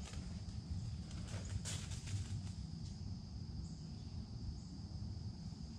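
Woodland ambience: a steady high insect trill over a low rumble, with a few brief rustling clicks between about one and a half and two and a half seconds in.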